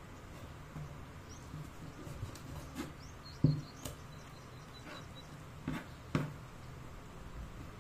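Kitchen knife cutting raw chicken on a plastic cutting board: about five sharp knocks as the blade strikes the board, the loudest about three and a half seconds in.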